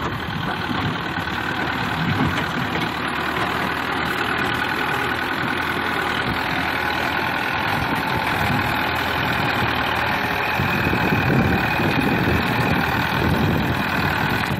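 Farm tractor's diesel engine running steadily under load as its front loader pushes soil, the low end growing rougher and more uneven from about ten seconds in.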